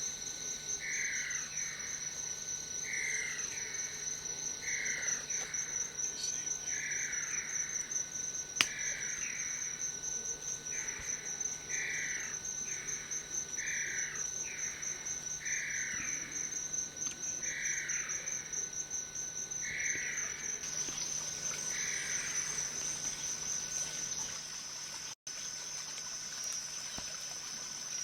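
Steady high insect trill, with a short falling call repeated about once a second that stops near the end.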